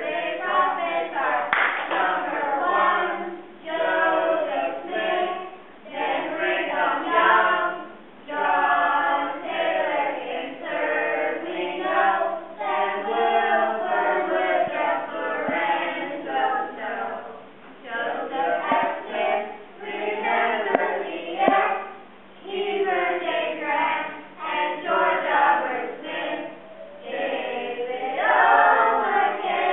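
A group of children's voices with a few adults singing a song together, in phrases broken by short pauses.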